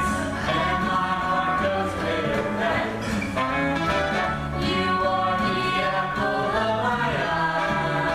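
A stage-musical song: a group of voices singing together over instrumental accompaniment with a steady, repeating bass line.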